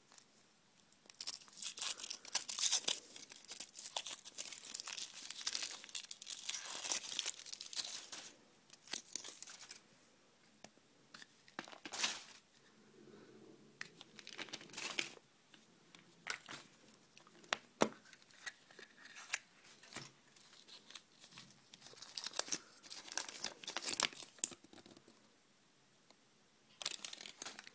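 Foil wrapper of a chocolate surprise egg crinkling and tearing as it is peeled off, densest over the first several seconds. After that come intermittent crackles and a few sharp clicks as the chocolate shell is broken and the plastic capsule inside is opened.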